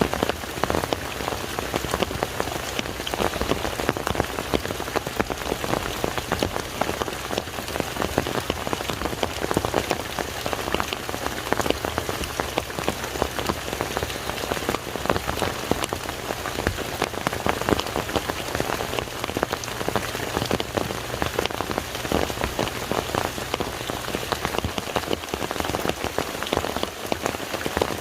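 Steady rain falling on a lake's surface, an even hiss laced with many separate drop strikes.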